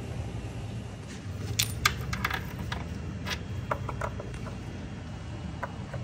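Light metallic clicks and clinks, scattered irregularly, from metal parts and tubing being handled, over a low steady hum.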